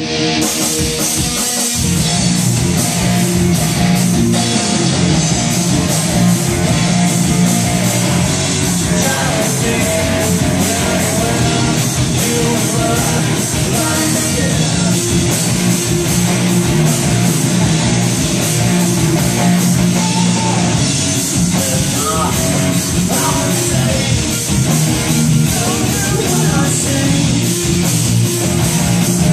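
Rock band playing loud at a rehearsal: distorted electric guitars over a drum kit with crashing cymbals and a steady beat.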